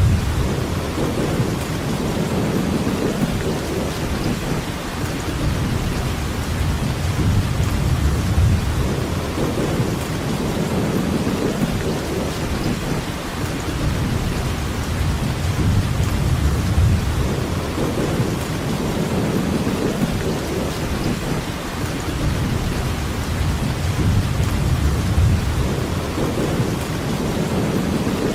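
Steady heavy rainfall hissing without a break, under a low rumble of distant thunder that swells and fades every few seconds.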